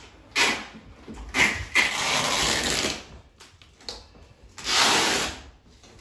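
Duct tape being pulled off the roll in three rips: a short one about half a second in, a longer one of nearly two seconds, and another near the end.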